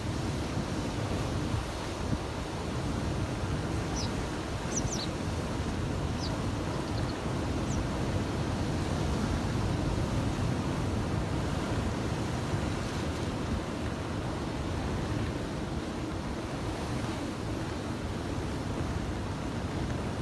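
Heavy typhoon swell breaking against a harbour breakwater: a continuous deep wash of surf, swelling slightly midway, with wind on the microphone.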